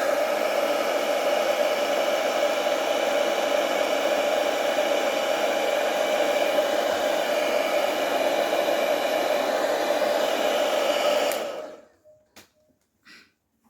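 Hand-held hair dryer running steadily with a motor whine, switched off about eleven seconds in; a few faint taps follow.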